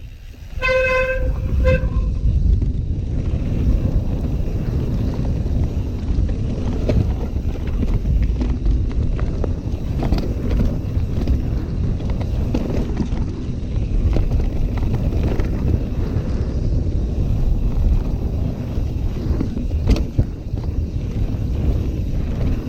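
Mountain bike descending a dirt trail: wind buffeting the microphone over the rattle and knocks of tyres and frame on rough ground. About a second in, a short horn-like toot sounds once.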